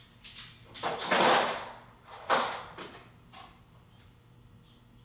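Metal hand tools being rummaged through: a longer scraping slide about a second in, then a sharp clatter that rings off, and a smaller knock just before three seconds.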